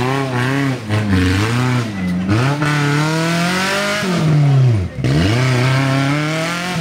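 Modified off-road 4x4's engine revving hard under load as it climbs a steep mud slope with its wheels spinning. The revs rise and fall, drop away sharply near five seconds in, then climb again.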